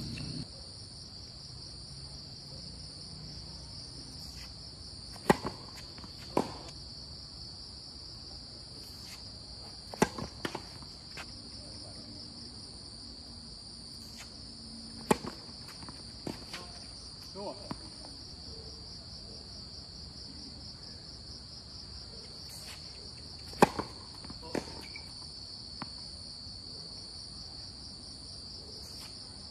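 Tennis ball hits from racket strikes and bounces on a hard court: sharp pops every few seconds, several in pairs about a second apart. A steady, high-pitched insect chorus runs underneath.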